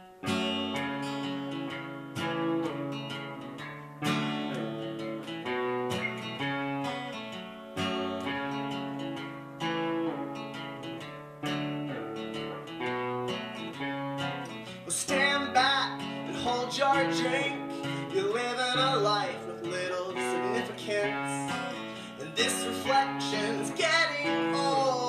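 Live acoustic and electric guitar duo playing a song intro, with a new chord strummed about every two seconds. A man's singing voice joins about fifteen seconds in.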